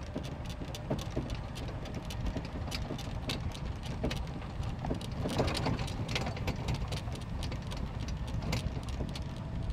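A small utility vehicle's engine running steadily as it drives over rough ground, with frequent rattles, clicks and crunches from the body and tyres.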